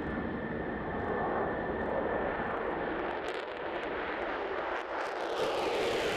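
F-16 fighter jet taking off on full afterburner: a loud, steady rush of jet noise that grows brighter and hissier about five seconds in.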